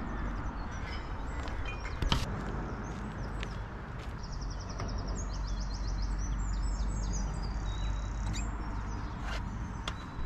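Small birds chirping and singing, including a quick high trill about halfway through, over a steady low rumble. A sharp knock comes about two seconds in.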